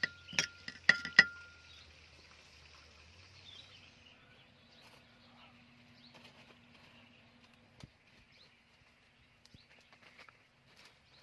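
A handful of sharp knocks in the first second or so, one leaving a brief ringing tone, then a faint outdoor background with scattered small clicks and taps.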